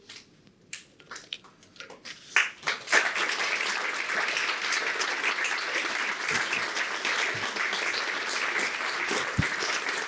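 Audience applause: a few scattered claps at first, swelling into full, steady clapping about three seconds in.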